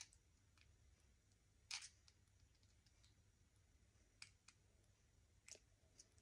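Faint, scattered clicks and scrapes of a small precision screwdriver working at a tiny screw on a red dot sight, with the loudest click about two seconds in and a few fainter ones near the end.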